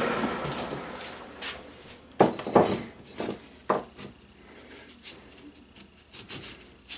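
A bench power tool winding down after sanding a small wooden part, then several sharp knocks of small wooden toy-train pieces being handled and set down on the bench.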